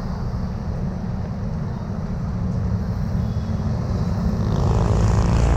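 Road traffic: a steady low engine rumble that grows louder near the end as a vehicle draws close.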